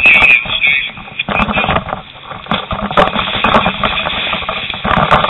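Muffled, indistinct voices over loud, rough noise, with no words made out; loudness dips briefly around the middle.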